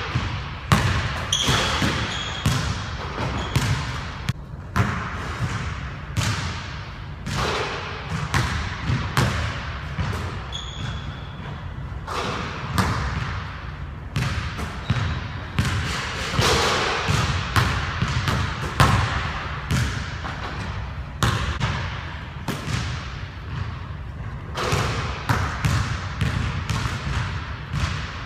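A basketball repeatedly bouncing and thudding on a hardwood gym floor during shooting practice, with sharp, irregularly spaced impacts echoing in the large hall.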